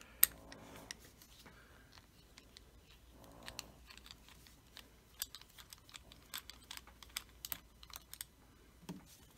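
Light, scattered metallic clicks and ticks of a Phillips head screwdriver working the screws out of a steel padlock body, with one sharp click about a quarter second in and a quicker run of small ticks in the second half.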